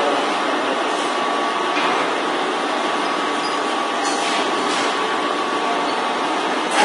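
Horizontal milling machine running steadily, a continuous mechanical hum and whine with a faint steady tone, while cutting the teeth of a steel gear rack.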